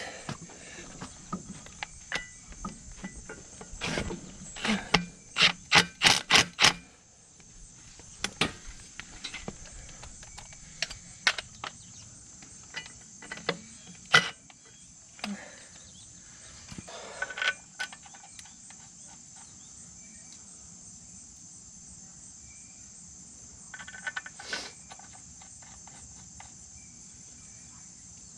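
A quick run of about half a dozen loud, sharp metallic knocks about five seconds in, then scattered clicks and clanks from tools working on the tractor's rear axle housing. A steady high insect chirring runs underneath.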